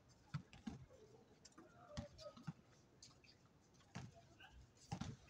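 Faint sounds of a basketball game on an outdoor court: scattered thumps of the ball bouncing and faint distant voices of the players.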